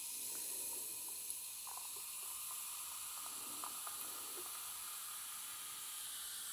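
Carbonated canned gin and tonic fizzing over ice as it is poured into a glass: a steady soft hiss with a few faint small ticks.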